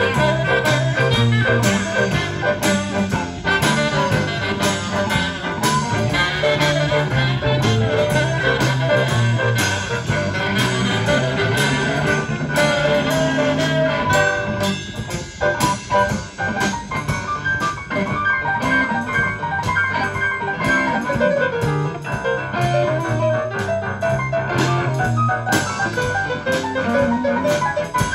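Rock 'n' roll band playing an instrumental stretch without singing, with a steady beat.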